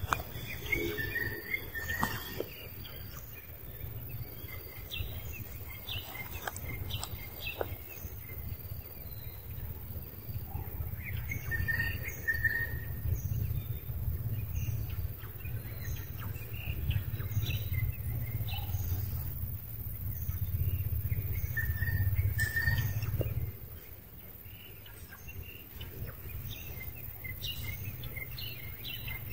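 Birds chirping again and again in the background, short high calls throughout, with scattered light clicks. A low rumble underneath stops suddenly about 23 seconds in.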